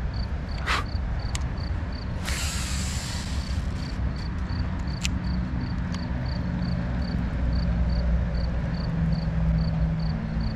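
A cricket chirping steadily, about three short chirps a second, over a continuous low rumble. A brief hiss comes about two seconds in, and there are a couple of sharp clicks.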